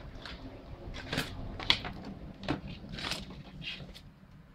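Hands working on a car speaker frame, making a string of short, irregular scrapes and rustles.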